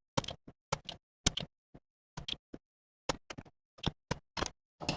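Irregular small clicks and taps of hand work on patch-cable plugs during desoldering, some coming in quick pairs.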